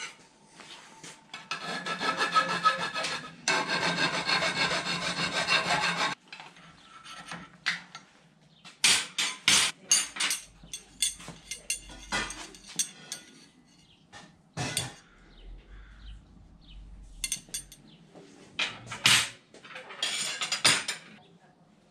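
Metalworking bench handling: a few seconds of loud scraping and rubbing, then a run of sharp clinks and knocks as bent steel rods and tools are moved about on a steel welding table and vise, with more short scrapes near the end.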